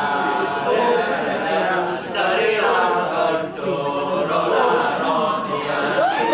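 Kecak chant: a chorus of men's voices chanting together, with no instruments. A high rising call cuts through near the end.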